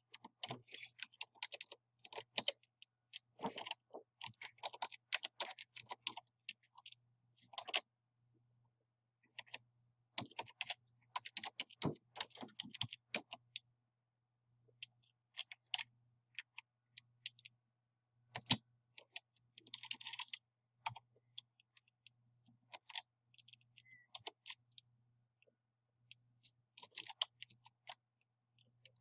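Computer keyboard being typed on in irregular bursts of keystrokes with short pauses, as a command line is keyed in.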